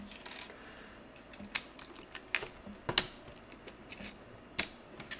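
Sharp, irregular clicks and small taps of a phone's small plastic cover and internal parts being worked loose by hand, about five distinct clicks spread across a few seconds.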